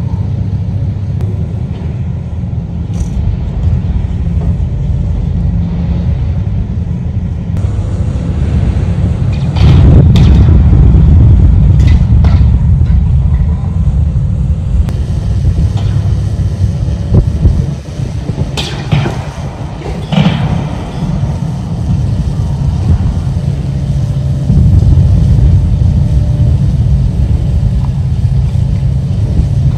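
Heavy diesel engine of a Hitachi ZX1000K high-reach demolition excavator running with a deep, steady rumble. Sharp crashes and cracks of demolition work break in several times, loudest about a third of the way in and again about two-thirds through.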